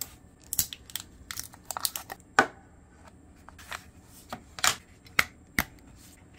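AA batteries and a plastic TV remote being handled as the batteries go into its battery compartment: an irregular string of sharp plastic clicks and short rattles, the loudest about two and a half seconds in and again near five seconds.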